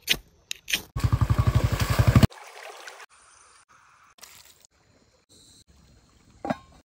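Quick-cut sequence of short clips. After a few clicks, an engine runs with a fast, even chugging for about a second. It then cuts to several brief, quieter stretches of trickling water and outdoor noise, each ending abruptly.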